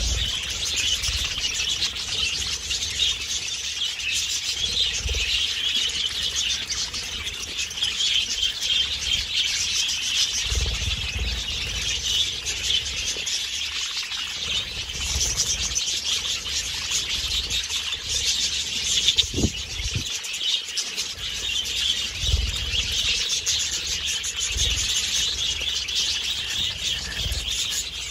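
A flock of budgerigars chattering and chirping continuously in a dense, high warble, with a few short low thumps underneath.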